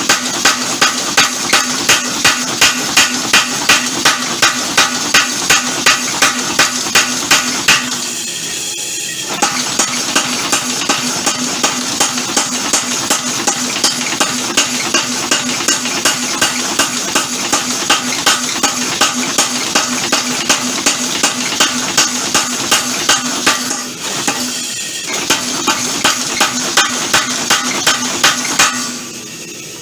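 Homemade mechanical power hammer running, its ram striking hot leaf spring steel in a fast, even rhythm over a steady motor hum. The blows pause briefly twice and stop near the end.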